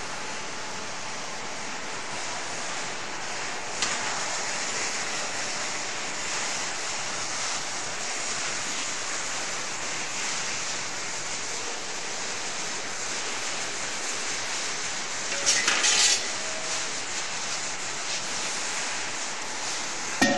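Steady hiss, with stainless-steel sifter parts knocking as they are handled: a single knock about four seconds in and a short clatter of knocks near the end.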